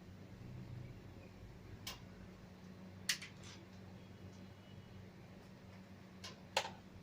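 A low steady hum with a few sharp clicks. The two loudest clicks come about three seconds in and near the end.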